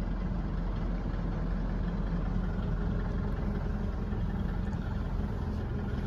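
Steady low drone of a Force Tempo Traveller van idling, heard from inside its passenger cabin.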